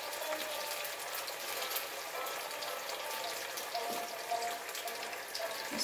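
Blended tomato and onion paste frying in oil in a pan: a steady sizzle with many small crackles and pops.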